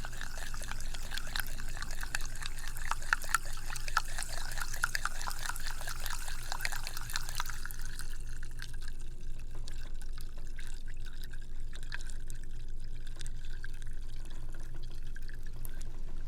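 Wet, crackling liquid sounds, dense for about the first seven and a half seconds, then thinning to fainter scattered wet clicks.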